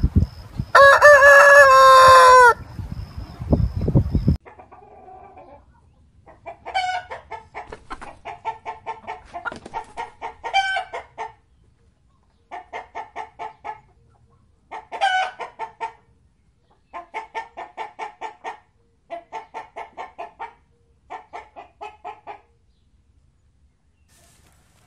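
A rooster crows once about a second in, a two-second call that drops in pitch at the end, over a heavy low rumble that stops after about four seconds. Then a chicken clucks in a run of rapid, stuttering bursts, in separate groups, until near the end.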